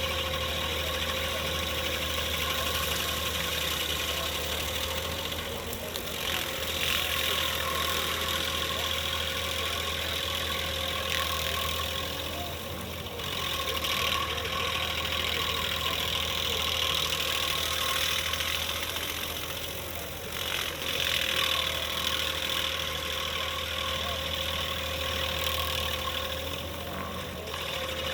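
Skid steer running a stump grinder attachment: a steady engine hum and a constant whine, with a louder hiss that swells and fades every several seconds.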